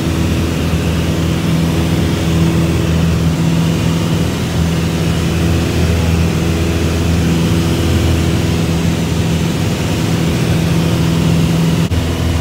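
Small propeller plane's engine and propeller droning steadily in flight, heard inside the cabin, with a brief break near the end.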